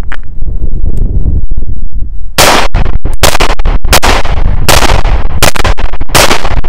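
Llama Max-1 .38 Super pistol firing a string of about six shots roughly a second apart, starting about two and a half seconds in, with Winchester Silver Tip hollow-point ammunition. The string ends in the same failure to feed that this pistol has been having with hollow points, the bullet wedging against the barrel feed ramp.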